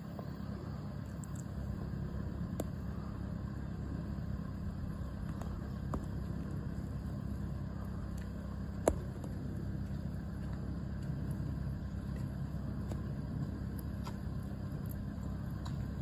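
Steady low outdoor rumble, with a sharp click about nine seconds in and a fainter one near three seconds.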